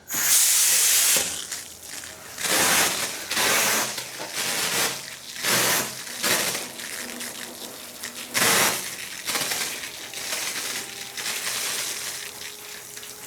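Pressure washer spray wand shooting water in repeated hissing bursts of about half a second to a second, the first and loudest right at the start, wetting down the area before rust remover goes on.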